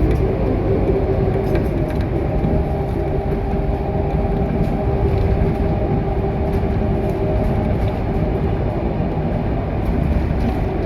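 Scania K230UB EEV city bus's diesel engine and driveline running, heard from inside the passenger cabin: a steady low drone with a held whine.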